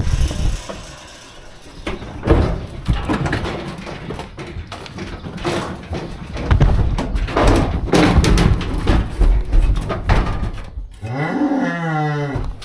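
Irregular knocking and clattering, then near the end a bull lets out one long moo that rises and then falls in pitch.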